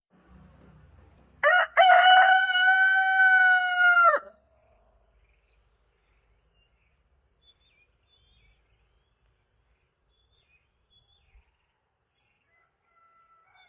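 A rooster crows once, about a second and a half in: a short broken start, then a long held call of almost three seconds that drops in pitch as it ends. A much fainter crow begins near the end.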